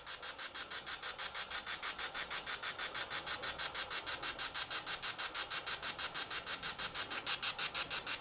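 Vox GhostTube ghost-box app playing through a phone's speaker: a steady, rapidly pulsing hiss, about seven pulses a second, as the app sweeps.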